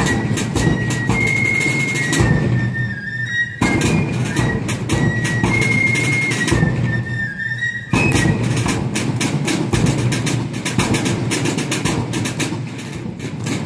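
Fife and drum corps playing a march: shrill fifes carry the melody over steady side-drum and bass-drum beats, and about eight seconds in the fifes stop while the drumming carries on.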